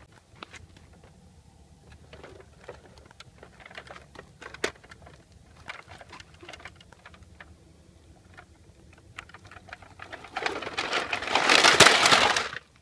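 Bruder plastic toy low loader truck and toy excavator rolled over gritty sand: scattered small plastic clicks and rattles. About ten seconds in comes a loud two-second burst of scraping and clattering as the toys tip over and tumble on the ground, cutting off suddenly.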